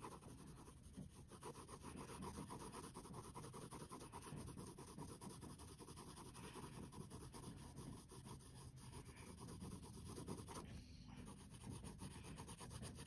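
Faint scratching of a graphite pencil shading on sketchbook paper, in quick repeated strokes.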